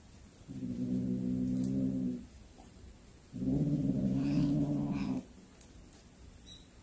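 Domestic cat growling low over a snake it has caught, two long growls of about two seconds each with a short pause between: a possessive growl guarding its prey.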